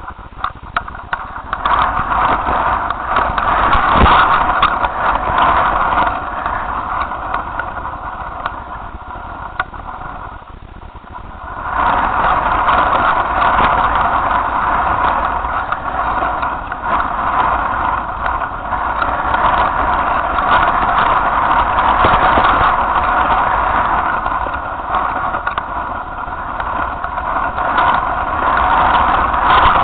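Strong wind buffeting the microphone of a camera flown on a kite, a steady, rough rushing that eases for a few seconds about a third of the way in and then picks up again.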